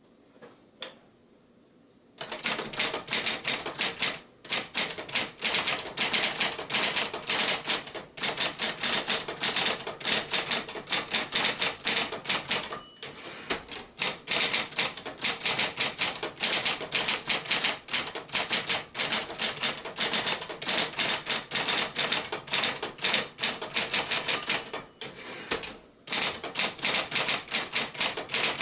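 Royal 1200 Electric typewriter (Silver-Seiko-built Apollo variant) being typed on at a fast pace: rapid keystroke clacks in runs with short breaks, starting about two seconds in after a single click. A brief high ping sounds twice, each shortly before a pause in the typing.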